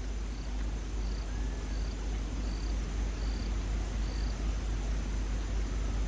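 Outdoor ambience: a steady low rumble, with a short, high-pitched chirp repeating about once every three-quarters of a second, like a calling insect.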